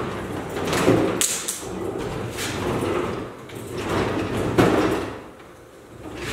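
Metal tool chest drawers sliding open and shut on their runners several times, each a short rolling rumble with a knock at the end of travel.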